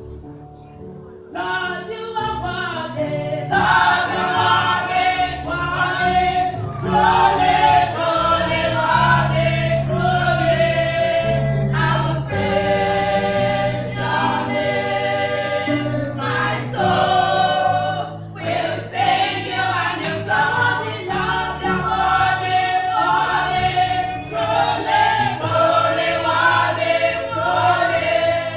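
A choir singing a gospel song with accompaniment.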